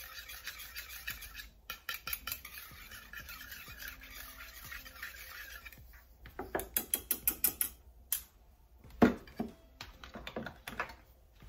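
Wire whisk stirring sauce in a small metal bowl, a fast steady scraping. About six seconds in it gives way to a quick run of sharp clicks of metal on metal, and a loud knock comes near nine seconds in, followed by a few lighter clatters.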